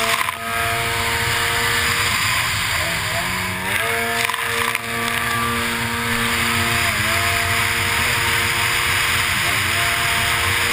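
Racing runabout jetski engine running hard at high revs, the pitch dropping and climbing back about four times, over a steady rush of water and spray.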